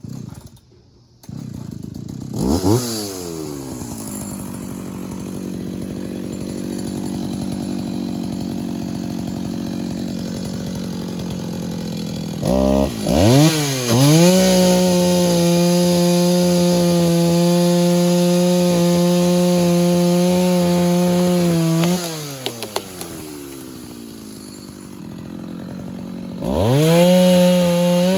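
Vintage two-stroke chainsaw cutting into a hickory trunk. It revs up about two and a half seconds in and runs at lower speed, then is held at a steady full throttle for about eight seconds from about halfway. It drops back down and revs up again near the end.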